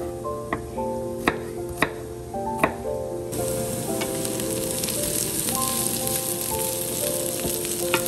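A chef's knife chops garlic on a bamboo cutting board, four sharp strikes in the first three seconds. Then, from about three seconds in, diced onions and carrots sizzle in oil in a frying pan, a steady hiss.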